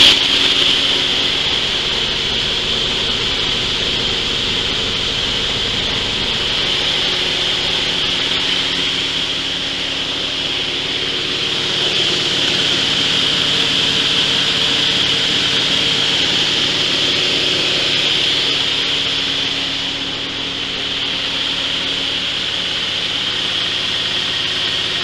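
Belt-driven coffee huller running, dry parchment coffee being rubbed and hulled inside it with a steady hissing grind, over the steady hum of the small single-cylinder diesel engine that drives it.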